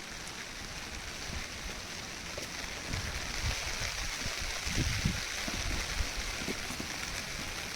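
Steady rushing of water, such as a monsoon stream, waterfall or heavy rain, with irregular low rumbles of wind on the microphone that are strongest in the middle.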